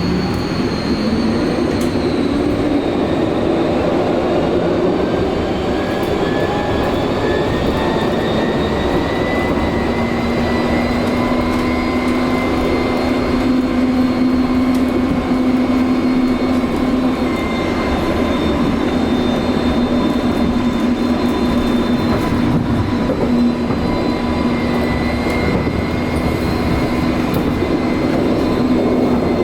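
Vossloh Tramlink tram running on the line, its traction drive whining with a pitch that climbs as it accelerates over the first ten seconds or so, then holds steady at speed over the continuous rumble of wheels on rail.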